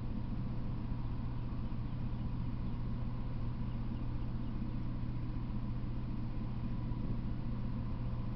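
A steady low hum with an even hiss above it, unchanging throughout.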